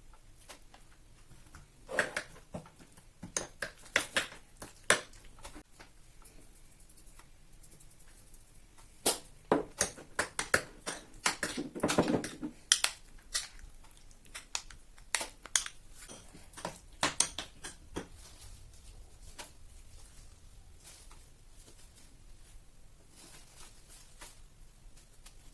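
Irregular sharp clicks and knocks of food preparation on a kitchen work surface, coming in clusters, busiest in the middle.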